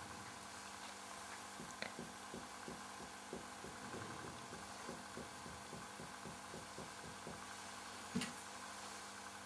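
Very quiet finger-on-finger percussion of the chest: soft, evenly spaced taps, about three a second, with one sharper click near the end.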